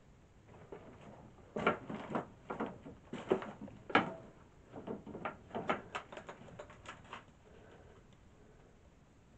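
Irregular knocks and clatter on old wooden boards, a quick run of them from about a second and a half in to about seven seconds, then quieter.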